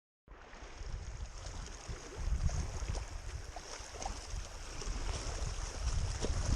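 Strong wind buffeting the camera microphone in uneven low rumbles, stronger about two seconds in and again near the end, over a steady high hiss. The sound cuts in abruptly from silence at the very start.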